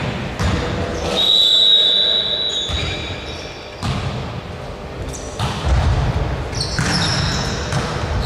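Basketball game in a large echoing hall: the ball bounces repeatedly on the court and sneakers squeak, with a steady high whistle about a second in that lasts roughly a second and a half, and players' voices in the background.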